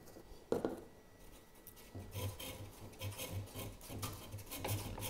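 Five-minute epoxy being stirred in a small cup: a mixing stick scrapes around the cup in quick repeated strokes, about three a second. A single knock comes about half a second in.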